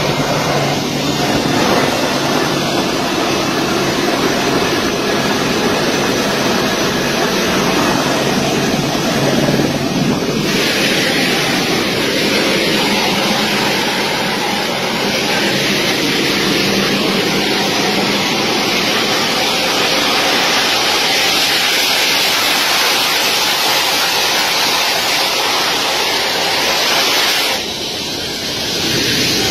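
Jet engines of a large military transport aircraft running at close range: a loud, steady rushing noise with wind buffeting the microphone. The hiss turns brighter about ten seconds in, and the level dips briefly near the end.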